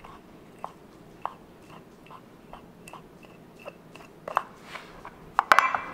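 Small knife cutting a dove breast free of the breastbone: small, irregular crunching clicks, with a few louder sharp snaps near the end.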